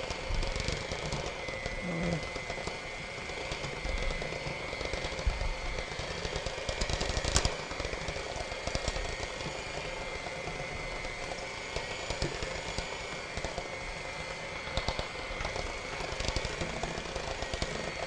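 Electric hand mixer running steadily, its beaters whipping chocolate frosting in a ceramic bowl, with scattered clicks and one louder click about seven seconds in.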